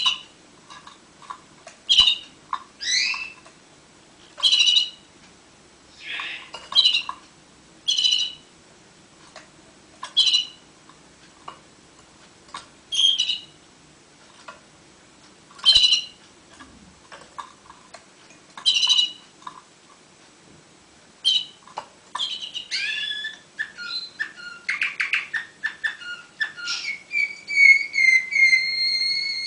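Domestic canary calling in single short chirps spaced a second or two apart, then breaking into song about 22 seconds in: a fast rolling trill followed by a held whistled note near the end.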